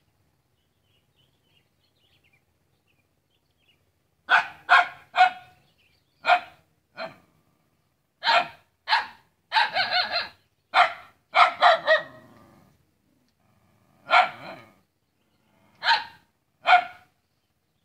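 A dog barking repeatedly at a person, a warning at someone it treats as an intruder. It is quiet for about the first four seconds, then gives about fifteen sharp barks, mostly in quick groups of two or three with short gaps, the last few more spaced out.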